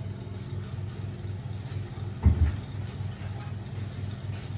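Steady low motor hum with an even, regular pulse, and one dull thump a little over two seconds in.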